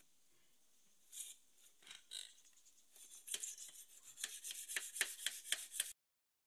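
Thin wire rod scraping in and out of the core tubes of a Mahindra Bolero radiator with its top tank off, rodding out the clogged tubes to cure overheating. A few scrapes about a second in, then a quick run of about four strokes a second from about three seconds in.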